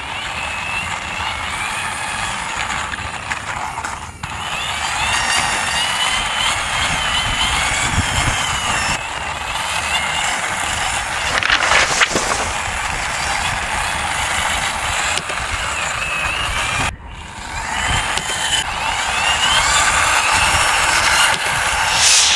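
Plastic wheels of a toy police motorcycle rolling and grinding over rough concrete as it is pushed by hand, with a faint wavering whine over the scraping; it stops briefly twice.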